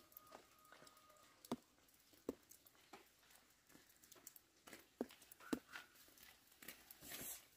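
Near silence with faint footsteps on bare dirt, a soft step about every half to three-quarters of a second.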